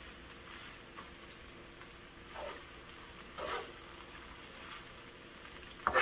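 Fried rice sizzling in a frying pan as a spoon stirs it, with a steady hiss and three louder scraping strokes of the spoon through the rice.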